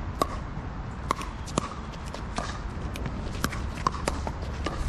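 Pickleball play: the sharp pock of paddles striking the hollow plastic ball and the ball bouncing on the court, a dozen or so hits spaced about half a second to a second apart, some louder and some fainter.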